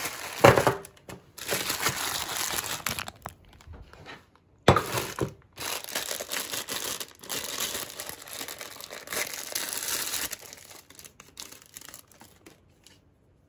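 Plastic ice-lolly wrappers crinkling as they are handled and one is torn open. The rustling comes in irregular bursts, with sharp crackles about half a second in and near five seconds, and dies away shortly before the end.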